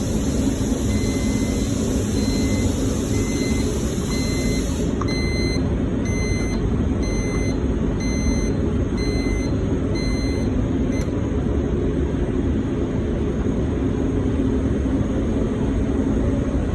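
Bry-Air P95X industrial dehumidifier running: a loud, steady blower drone. For the first ten seconds or so a short electronic beep repeats about once a second, then it stops.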